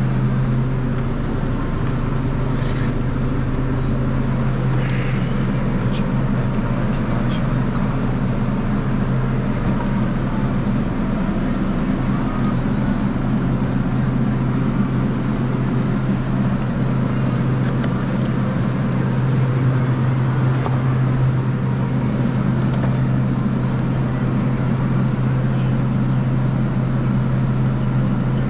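Steady, loud low hum of refrigeration machinery in a dairy cooler, with a few faint clicks of eggs and egg cartons being handled.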